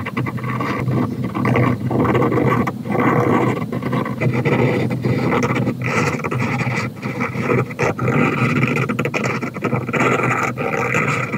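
Fountain pen nib scratching across paper in a run of short strokes, with brief pauses between them.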